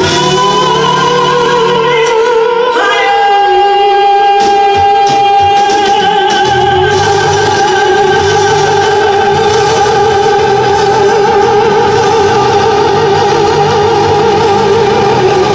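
Live music from a solo performer's electronic rig: after a rising glide, one long voice-like note is held with a wavering vibrato for over ten seconds, over a low pulsing bass that drops out for a few seconds early on and then returns.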